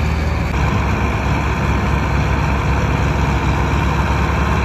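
Diesel tractor engine running hard under load, its note picking up about half a second in, as it strains to tow a trolley heavily loaded with sugarcane that is bogged down in the field.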